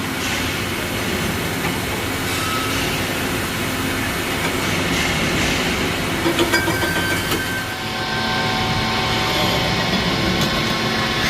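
CNC machining line with an automatic pipe loader running: steady machine hum and whine, with a few sharp metallic clicks about six and a half seconds in and a shift in the noise about eight seconds in.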